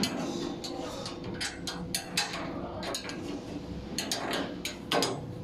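Irregular light clicks and knocks of a metal canopy bracket tube being handled and fitted against an electric vehicle's metal body, with one louder knock about five seconds in.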